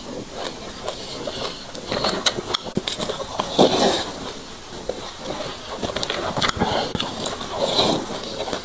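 Close-up chewing of a mouthful of dry sesame seeds: a dense run of small crunches and crackles, with mouth sounds as each spoonful goes in.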